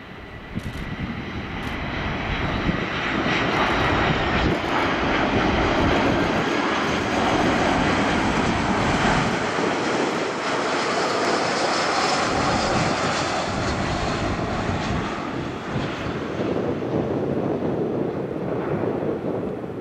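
Airbus A340-300's four CFM56 jet engines during the landing pass: a broad jet roar that builds over the first few seconds, holds loud for about ten seconds, then eases off.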